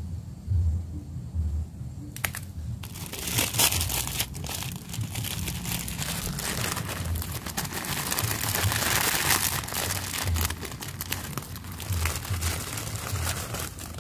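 Plastic instant-noodle packet crinkling and rustling as it is handled and its noodles are emptied into a pot, a dense crackle of many small clicks from about three seconds in, over a low rumble.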